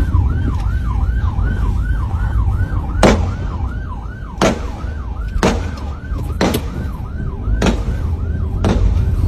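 Police siren in a fast repeating yelp, about three sweeps a second, over a steady road and engine rumble. Gunshots fired at a fleeing lorry's tyres cut through it: six sharp shots about a second apart, starting about three seconds in.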